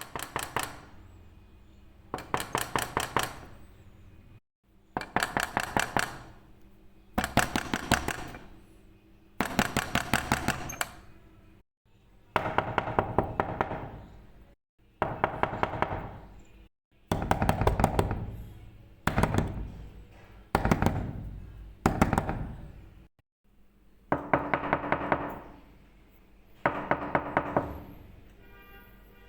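Knocking on a door in quick bursts of about eight to ten rapid knocks, each burst with a ringing resonance and repeated every two seconds or so. Brief silent cuts separate the different knocking styles.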